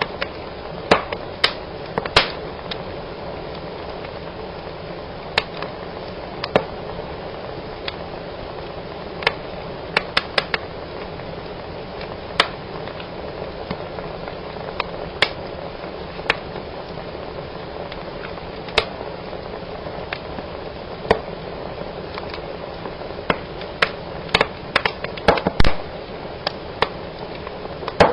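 Wood fire burning in a fireplace: a steady low rush of flames broken by sharp, irregular snaps and pops, which come thicker near the end.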